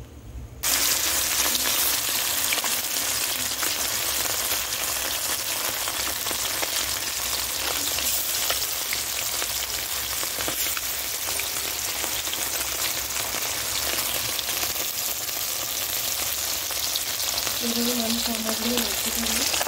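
Whole bata fish sizzling in hot oil in a wok. The loud, steady sizzle starts suddenly about a second in as the fish go into the oil.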